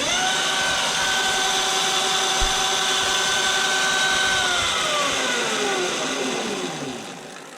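Highboy DK1 electric dirt bike's motor spinning the rear wheel up to speed with a steady high whine. After about four and a half seconds the whine falls in pitch and fades as the wheel coasts down.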